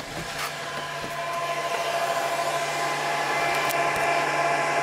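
A door latch clicks, then a server computer's cooling fans whir steadily with a low hum and a few thin whining tones, getting gradually louder.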